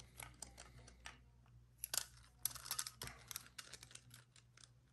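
Hard plastic Yo-Zuri deep-diving trolling lure being handled: a scattered run of light clicks and taps from its plastic body, clear diving lip and treble hooks, busiest about two to three seconds in.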